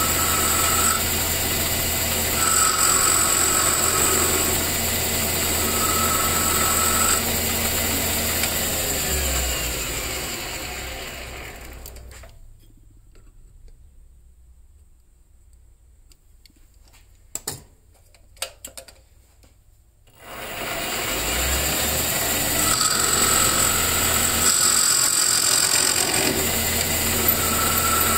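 Metal lathe running with a tool bit turning down a G-10 ferrule on a carbon fiber cue shaft, giving a steady machine hum with repeated high-pitched cutting passes. About a third of the way in the lathe winds down and it goes quiet except for a few small clicks, then the lathe starts up again and the cutting passes resume near the end.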